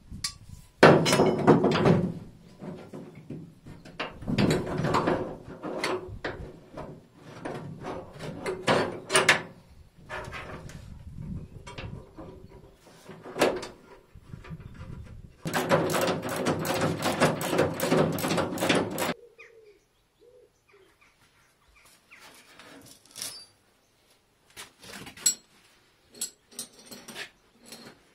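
Steel box-section dolly being fitted and fastened under a car body: irregular metal knocks, clanks and scraping, with a few seconds of continuous rattling scrape a little past the middle. After that come only a few light taps.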